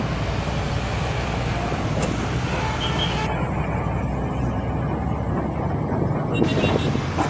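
Heavy haulage truck's diesel engine running steadily as it hauls a lowboy trailer past, a continuous low engine noise mixed with general road traffic.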